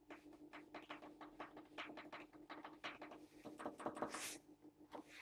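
Faint, rapid, irregular clicks and taps from handling the Stanton STR8-60 turntable's controls, over a steady motor hum.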